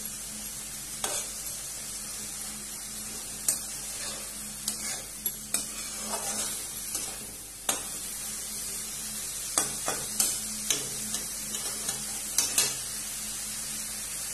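Dry fish and bamboo shoots sizzling in oil in a metal kadai while a flat spatula stirs them, scraping and knocking against the pan at irregular moments over a steady frying hiss.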